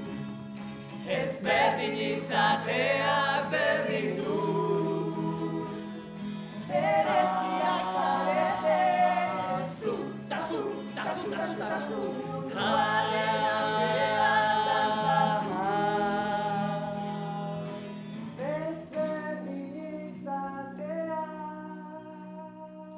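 Several voices singing together in harmony over a steady low held note, in phrases with short breaks; near the end the voices settle into a softer held chord that fades.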